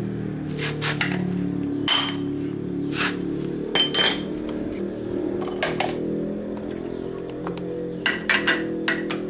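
Steel hand tools, an adjustable wrench and a socket bar, clinking and knocking against each other and the scooter engine, several strikes with a short metallic ring and a cluster of quick clinks near the end, over steady background music.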